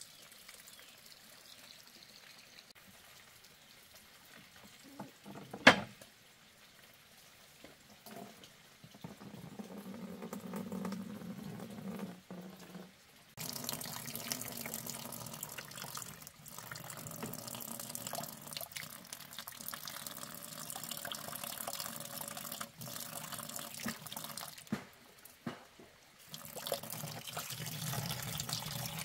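Water running and splashing into a container. It is faint at first, grows from about a third of the way in and runs steadily after that. A single sharp knock comes about six seconds in.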